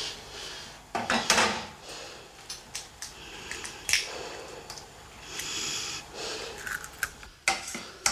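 Dishes and cutlery being handled: scattered clicks and knocks with rustling in a small room.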